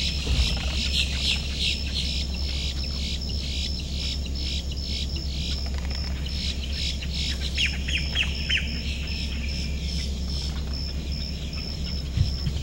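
Wild birds calling and chirping in a swamp. A high-pitched pulsing call repeats about three times a second throughout, and a short run of four falling whistles comes about eight seconds in, over a steady low hum.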